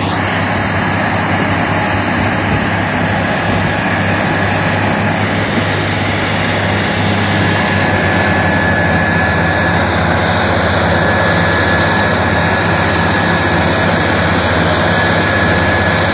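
Asphalt milling machine (cold planer) running steadily under load, a deep engine hum under a broad grinding roar, with a faint steady whine.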